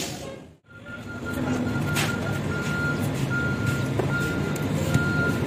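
A vehicle engine runs steadily while a reversing beeper sounds in repeated beeps, after a brief gap near the start. A couple of faint clicks sound around two and four seconds in.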